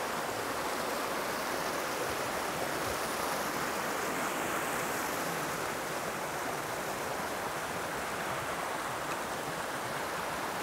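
River current rushing over rocks in a riffle, a steady, even hiss of running water.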